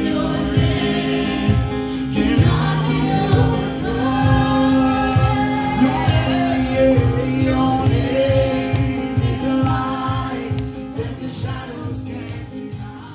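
A group of young worshippers singing a gospel worship song together over a steady beat; the music fades down over the last few seconds.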